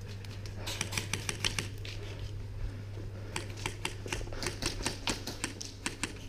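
Airsoft guns firing across the field: irregular runs of sharp, clicking shots in two clusters, over a steady low hum.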